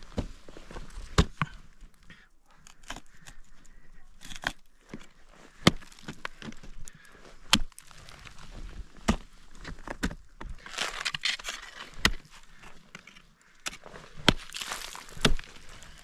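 Ice axes and crampons striking ice in irregular sharp knocks, with a couple of longer, noisier crunches about eleven and fourteen seconds in.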